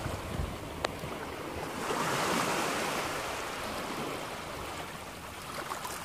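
Ocean surf washing on the beach, a wave swelling about two seconds in and slowly fading, with a single faint click just under a second in.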